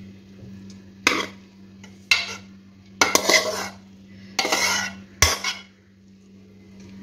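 Metal spoon scraping and clattering against a metal pan as boiled rice is scooped and tipped into a large aluminium pot, in about five bursts roughly a second apart, with a sharp knock about five seconds in. A low steady hum runs underneath.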